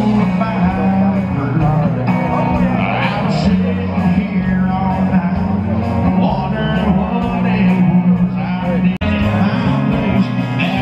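Rock music with singing; it drops out for an instant about nine seconds in.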